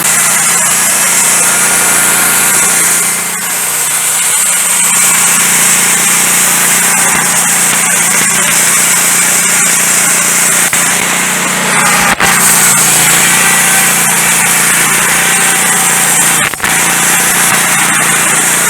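Wood-Mizer LT15 Go band sawmill running, its blade cutting through a pine log with a steady loud hum and hiss. Two sharp knocks break in, about 12 seconds in and again about 16 seconds in.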